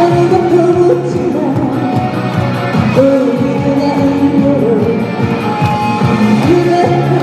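Live music: a female singer's voice over amplified backing music, with long held, wavering notes.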